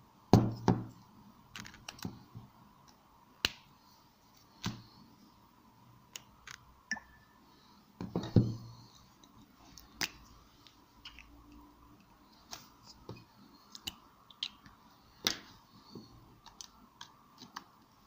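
Handling noise from a smartphone and a small plastic USB OTG adapter on a wooden table: scattered light clicks and taps, with two heavier knocks near the start and about eight seconds in.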